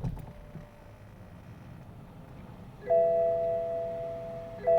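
A 2007 BMW 530i's inline-six idling just after start-up, a low steady rumble; the owner says it idles rough, running lean on both banks. About three seconds in, the car's dashboard warning gong sounds, a loud multi-tone chime held for nearly two seconds, then sounds again briefly near the end.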